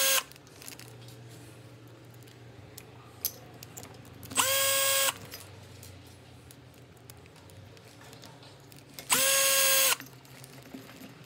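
Cordless drill-driver running in short bursts of under a second each, a steady whine that comes up to speed at once, driving tiny 1.5 mm screws into an RC truck's front plate. One burst ends just after the sound begins, and two more come about four and nine seconds in, with faint clicks of handling parts between.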